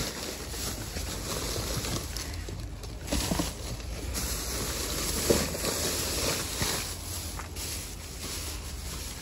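Plastic trash bags rustling and crinkling as a gloved hand digs through them, over a steady low rumble, with one small sharp knock about halfway through.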